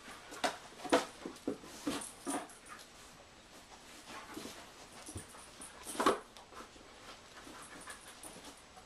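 A dog searching by scent among cardboard boxes. There is a run of short, sharp sounds in the first three seconds and a louder one about six seconds in, with fainter ones between.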